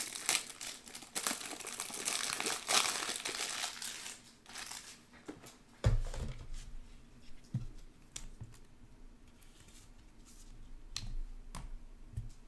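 Packaging being handled, crinkling and crackling for about the first four seconds, then quieter handling with a few soft thumps and light clicks.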